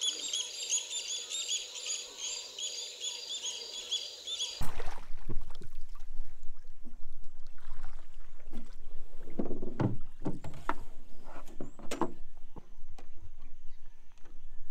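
Birds calling in quick series of high, repeated notes. About four and a half seconds in this gives way to a canoe being paddled: paddle strokes and splashes in the water over a low rumble.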